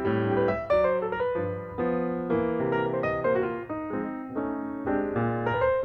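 Background piano music: chords and a melody played at an even, unhurried pace, each note starting crisply and fading.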